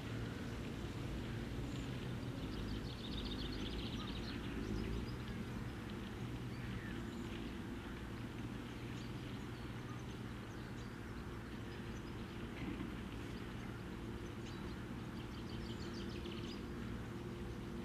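Outdoor ambience: a steady low rumble with faint, high bird song trilling twice, about three seconds in and again near the end.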